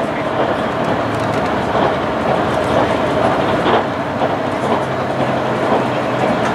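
Running noise heard inside the cabin of an HC85 series hybrid express train moving at speed: a steady rumble of wheels on the rails, with occasional faint clicks.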